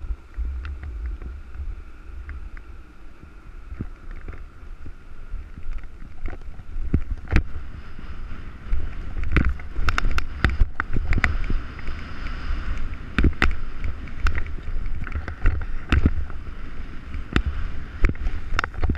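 Snowboard sliding and scraping over chopped-up, tracked snow, with many sharp knocks as the board chatters over bumps, all under low wind buffeting on the camera's microphone. The scraping and knocking grow louder and busier about halfway through as the board picks up speed.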